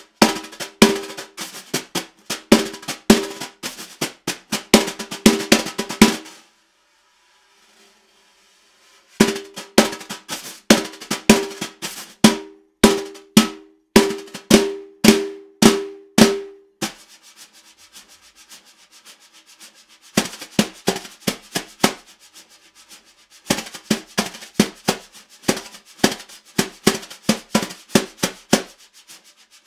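Solo snare drum played with wire brushes: fast runs of strokes on the head. About six seconds in, the playing stops for about three seconds, then returns; in the middle it drops to a few seconds of soft, light strokes before the loud runs resume.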